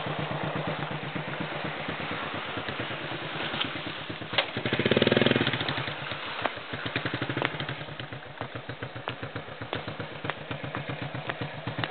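Motorcycle engine running at low speed, its firing pulses steady, with a brief louder rev about halfway through. A few sharp knocks come from the bike bumping over a rough dirt trail.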